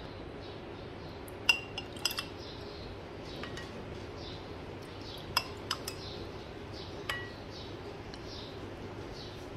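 A white spoon clinking against a glass bowl and drinking glass while ladling drink: about eight sharp clinks, some ringing briefly, in small irregular groups over a steady low background noise.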